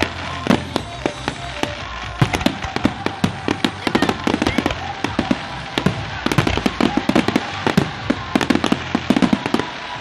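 Fireworks display: aerial shells bursting in a rapid, overlapping barrage of bangs and crackles, several a second.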